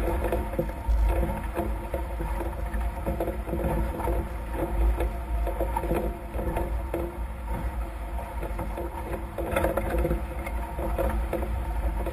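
Nacra F18 catamaran sailing at speed: water rushing and slapping along the hulls, with a constant low rumble of wind buffeting the mounted camera's microphone and a faint steady hum underneath.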